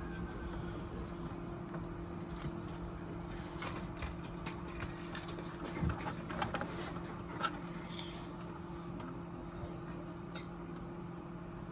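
Coturnix quail chicks hatching: scattered soft clicks and taps, thickest in the middle, with a couple of faint high peeps over a steady low electrical hum.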